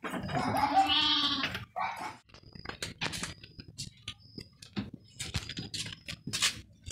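A sheep bleats once at the start, a single wavering call of under two seconds. Scattered light clicks and knocks follow.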